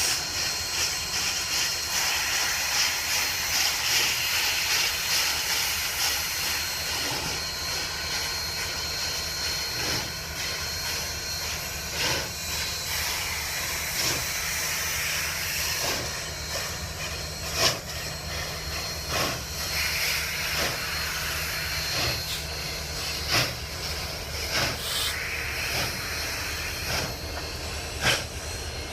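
Union Pacific 844, a 4-8-4 steam locomotive, hissing steam steadily, with sharp knocks every second or two.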